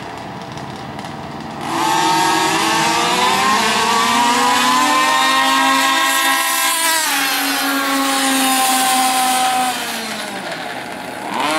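Several large-scale gas-powered RC cars racing at full throttle, their small two-stroke engines whining together. The whine starts suddenly about two seconds in, drops in pitch as the cars pass about seven seconds in, and fades as they run off down the road.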